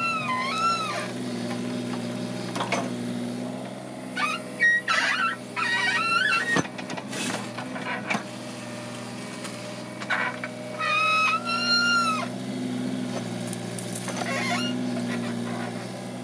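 Mini excavator's engine running steadily while the bucket digs, with repeated high, wavering pitched squeals over it.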